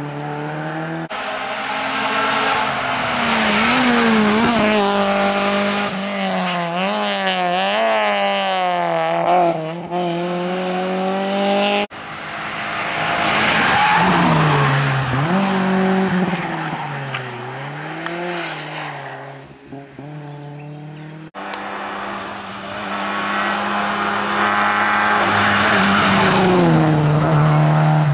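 Rally cars driven hard through a tarmac corner one after another, the sound cut abruptly between cars about 1, 12 and 21 seconds in. Each engine revs high with its pitch rising and falling quickly as the driver blips the throttle and shifts gear.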